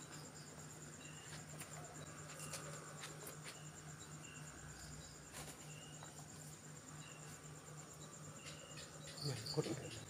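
Night insects chirring: a faint, steady, high-pitched pulsing trill, over a faint low hum.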